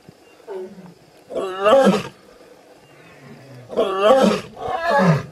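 Lionesses snarling: a short snarl about half a second in, then three loud, harsh snarls with wavering pitch, one near two seconds and two close together near the end.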